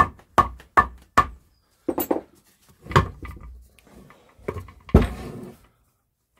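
Metal knocks on a Land Rover Series gearbox as a stuck shaft is tapped to persuade it out of the casing: four quick knocks in the first second and a half, then a few slower, harder blows, the loudest about five seconds in, each with a short ring.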